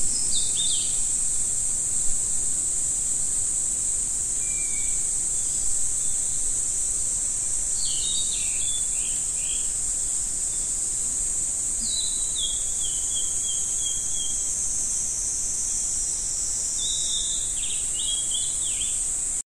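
Insects droning steadily at a high pitch, with a bird calling in short runs of notes several times; both cut off suddenly at the end.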